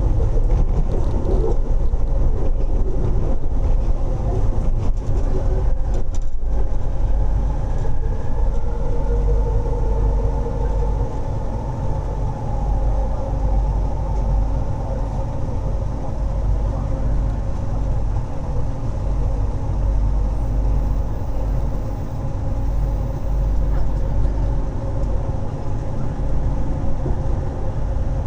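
Metro train running, heard from inside the carriage: a steady rumble of the wheels on the track with a faint whine from the motors.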